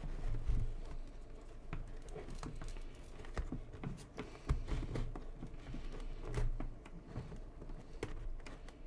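Hands working inside a motorcycle helmet's padded liner, tucking headset wires and earpieces into place: scattered light taps, clicks and rustles.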